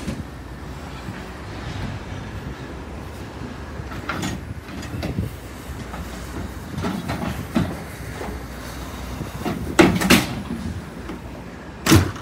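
Junk and furniture pieces thrown from a box truck landing on a debris pile: a string of knocks and clatters every second or two, the loudest a double crash about ten seconds in and another near the end.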